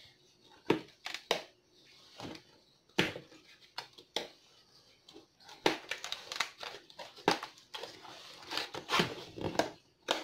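Cardboard box being opened and handled by hand: irregular crinkling, scraping and tapping, busier in the second half.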